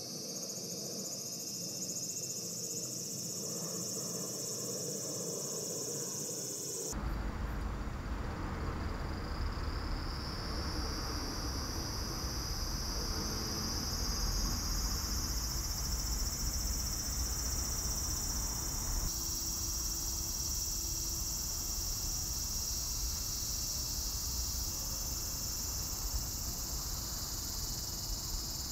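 A steady chorus of insects in the garden, a continuous high-pitched shrill. A low rumble joins suddenly about seven seconds in.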